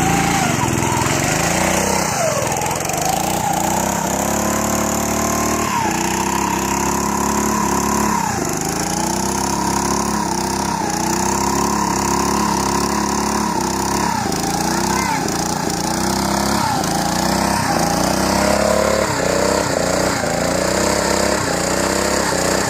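Off-road go-kart's small engine revving hard and continuously, its pitch climbing and dropping again and again as the throttle is worked.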